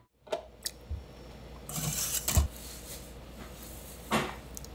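Kitchen work noises: a few light clicks and knocks and a short rustling stretch over a faint low hum.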